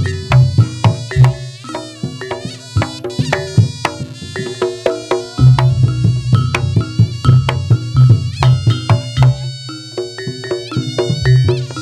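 Javanese traditional music played loudly through a big sound system: rapid struck metal-keyed notes and drums over a heavy bass beat, with no singing. The bass drops out about two seconds in and comes back about five seconds in.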